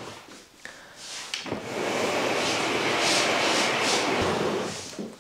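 A chest of drawers being pushed across a wooden floor: a knock, then a long scraping slide that comes in surges and fades out near the end.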